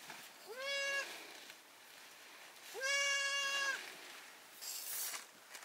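A goat bleating twice, two level calls with a quick rise at the start, the second longer. A brief rustle comes near the end.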